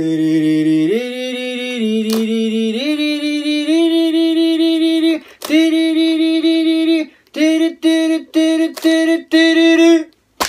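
A man humming a tune in long held notes that step upward in pitch, breaking into a run of short repeated notes on one pitch near the end.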